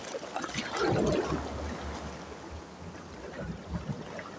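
Sea waves washing against a rocky shore: one wave surges just under a second in and slowly drains away into trickling water.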